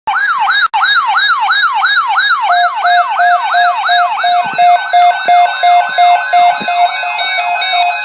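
Electronic siren wailing in quick repeated rise-and-fall sweeps, about three a second, cutting out for an instant under a second in. From about two and a half seconds in, a pulsing beep and a stepped electronic melody join over it.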